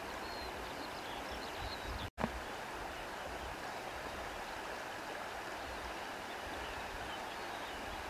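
Wind blowing through grass: a steady rushing hiss, with low rumbles of wind buffeting the microphone. The sound cuts out for an instant about two seconds in.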